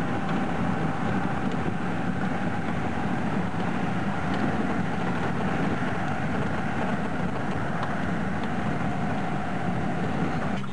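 Steady engine and road noise heard from inside a moving car.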